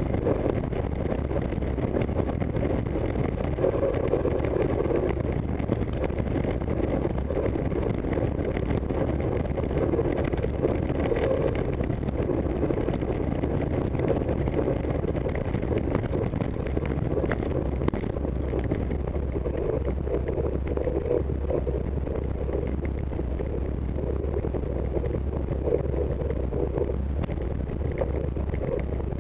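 Steady wind rush on the microphone of a bicycle-mounted camera while riding at race speed, mixed with the bicycle's tyres running over rough, cracked pavement.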